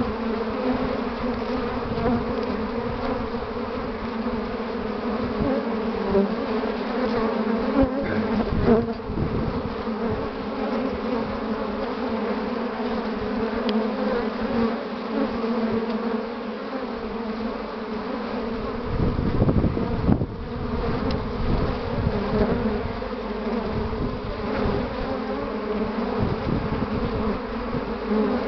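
Many honeybees buzzing steadily at a hive entrance during a heavy early-spring flow, foragers streaming in with willow pollen loads. A low rumble comes in about two-thirds of the way through.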